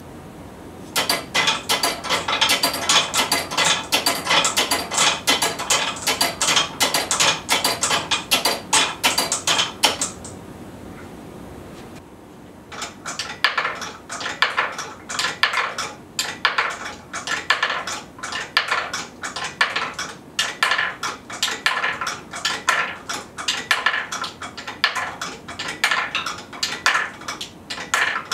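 Glass marbles clicking and clattering as wooden marble escapements release them one by one down wooden rails into a collection tray, with the escapement levers knocking. Rapid clicks for about nine seconds, a short lull, then another long run of clicks.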